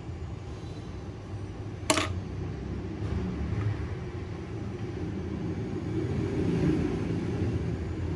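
Steady low background rumble, with one sharp click about two seconds in.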